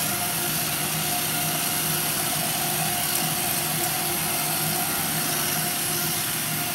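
Electric treadmill running at a steady speed: a constant whirr of the motor and moving belt, with a steady hum.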